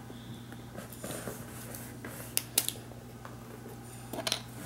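Small plastic toys being handled: a plastic surprise egg and a toy stamp, giving two sharp clicks about halfway through and a few more taps near the end, over quiet room tone with a low steady hum.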